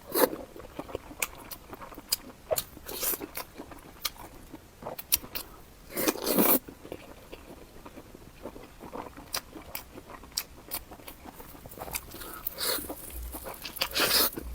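A person eating close to the microphone: scattered bites and chewing with sharp mouth clicks, and a louder bite about six seconds in.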